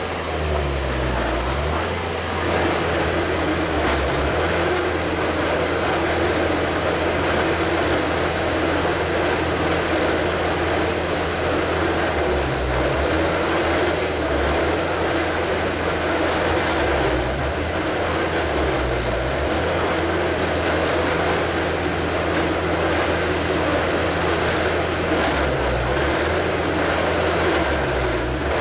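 Highway HHF truck-mounted pressure digger drilling into rocky ground: its engine and hydraulic drive run steadily under load, over a low rumble that shifts in pitch now and then.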